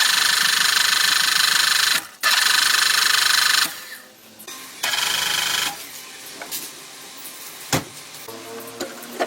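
Handheld power tool running in three bursts, the first about two seconds long, with a fast flutter in its sound. It is followed by light clinks and one sharp click near the end.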